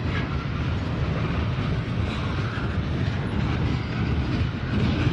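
Double-stack intermodal well cars rolling past at low speed: a steady rumble of steel wheels on rail.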